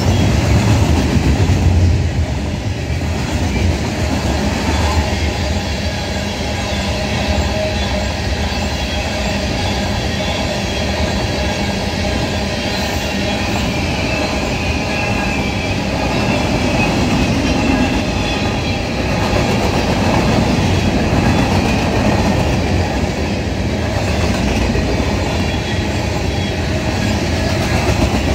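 Freight cars of a CSX train (covered hoppers, an autorack, tank cars) rolling past at speed: a steady rumble and rattle of steel wheels on the rails, with faint high tones running over it.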